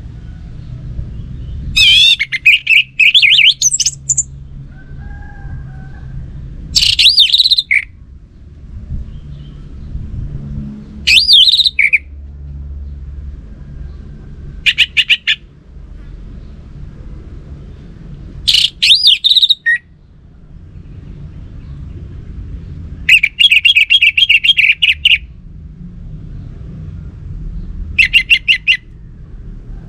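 Orange-headed thrush singing: about seven loud, varied phrases of one to two seconds each, a few seconds apart, over a low steady background hum.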